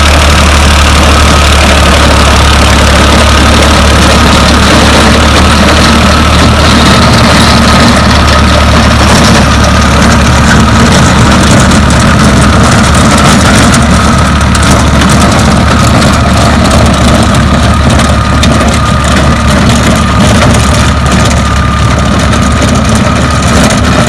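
Tractor engine running loud and steady while driving a rotavator tilling the ground, with a steady high whine over the engine.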